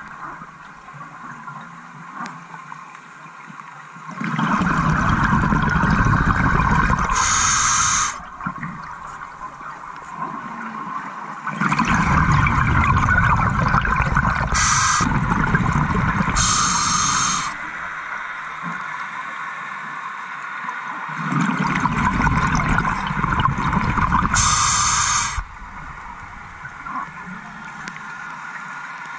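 Scuba diver's exhaled breath bubbling out of the regulator, heard underwater: three long rumbling bursts of bubbles, each lasting a few seconds, with quieter stretches between breaths.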